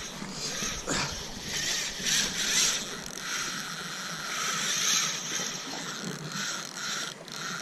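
Spinning reel worked against a hooked, running fish, likely a little tunny, its drag letting out line in pulsing buzzes over steady wind and water noise.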